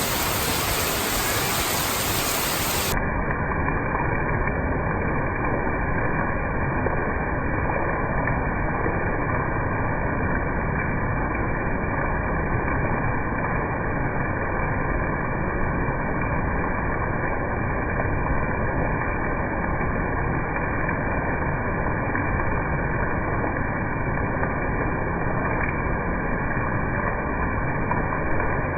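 Steady rushing hiss of heavy rain, even and unbroken. About three seconds in, the sound turns duller as its higher tones drop away.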